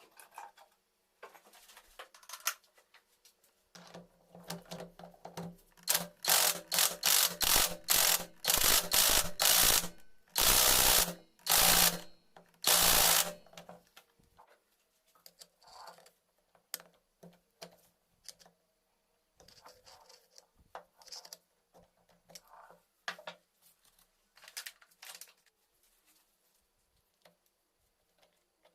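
Hand tools working on metal motorcycle engine parts: scattered clicks and knocks, with a run of loud, rapid metallic strikes and a few longer noisy bursts about six to thirteen seconds in.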